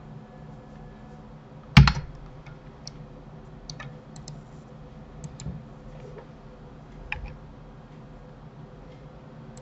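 Sparse computer keyboard key presses and mouse clicks, about a dozen scattered clicks with one louder knock about two seconds in, over a faint steady hum.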